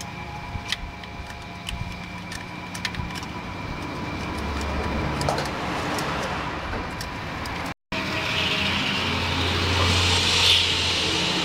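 Daewoo X25D inline-six engine running, with scattered light ticks over a steady hum. The sound breaks off abruptly about eight seconds in and comes back louder and lower.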